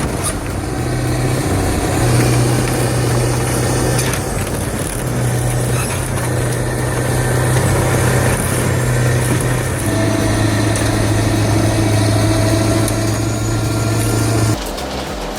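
Heavy machinery running with a steady low engine hum over a haze of mechanical noise and scattered clicks. The sound drops and changes abruptly near the end.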